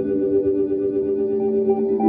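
Ambient guitar and electronic music: layered, sustained tones held steady, with a few short higher notes near the end.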